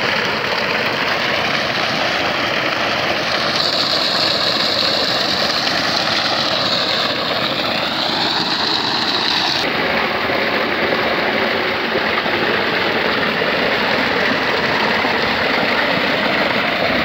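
Loud, steady rush of water gushing from a 4-inch pump discharge pipe and splashing into an earthen irrigation channel.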